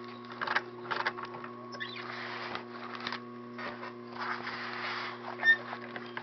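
Hand sewing: thread and needle being pulled through a buckle strap in short, irregular rustling pulls, with a few sharp clicks, the loudest near the end. A steady low hum runs underneath.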